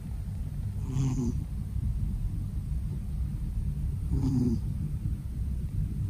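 Domestic cat snoring in its sleep: two short snores about three seconds apart, one about a second in and one about four seconds in, over a steady low rumble.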